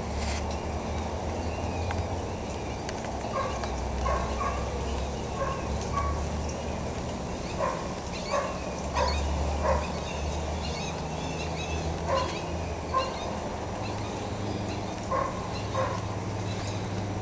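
A dog barking: about a dozen short barks, often in pairs, spaced irregularly, over a steady low rumble.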